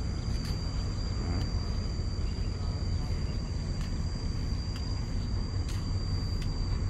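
Steady outdoor background noise: a low rumble, with a thin, steady high-pitched whine running under it.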